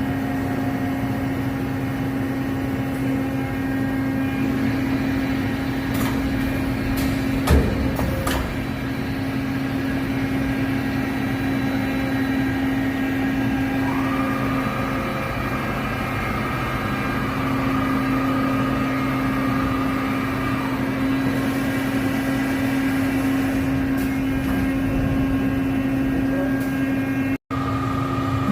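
Large five-face CNC machining center running under power: a steady mechanical hum, with a few sharp clicks and a single knock about a quarter of the way in, and a higher whine that comes in about halfway and stops some seconds later.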